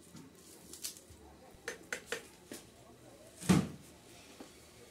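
Knife cutting fresh green stalks held in the hand: a few light, crisp cuts, then one much louder thump about three and a half seconds in.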